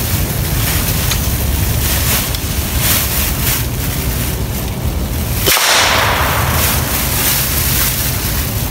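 Wind buffeting the microphone: a loud, steady rumbling noise with rustling, the low rumble dropping out briefly about five and a half seconds in.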